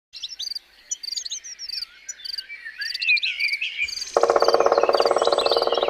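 Channel logo sting made of high chirping, bird-like calls and short repeated blips; about four seconds in, a loud buzzy, pulsing tone comes in and holds.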